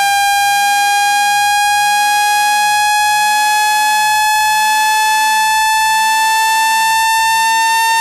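Loud electronic water-eject tone: a buzzy synthesized note with many overtones, its pitch creeping slowly upward, played to vibrate water out of a phone speaker.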